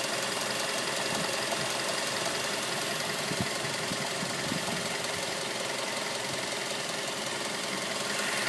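2006 Mazda 3's four-cylinder engine running steadily with a knocking sound from the engine.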